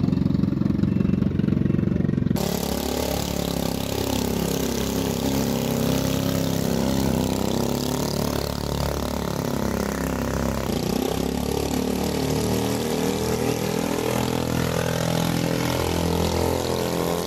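Piston engine of a small homemade single-engine light aircraft running with its propeller turning, its pitch wavering up and down. The sound changes abruptly about two seconds in and again near eleven seconds.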